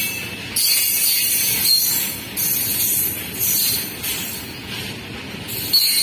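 Freight train of covered goods wagons rolling past close by: a steady rattle and rumble of wheels on the rails, with a high hiss that swells and fades about once a second as the wagons go by.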